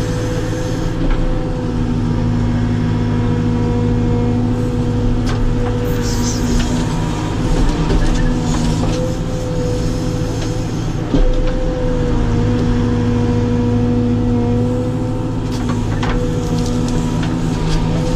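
Caterpillar 432F2 backhoe loader's diesel engine running steadily under digging load, heard from inside the cab, with a held hydraulic whine that comes and goes as the backhoe controls are worked. A single knock about eleven seconds in.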